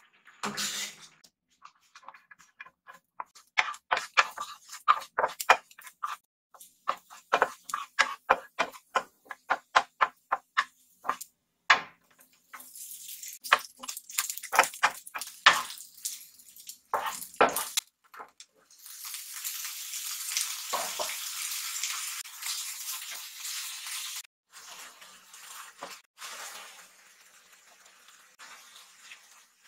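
Chef's knife chopping white beech mushrooms on a cutting board, in quick runs of sharp knocks. About twelve seconds in, sausage slices start sizzling in a non-stick frying pan as a wooden spatula stirs them; the sizzle is loudest about two thirds of the way through, then settles to a quieter sizzle.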